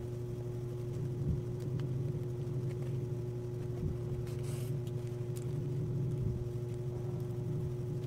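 A steady low mechanical hum with a constant tone above it, with a few faint light clicks.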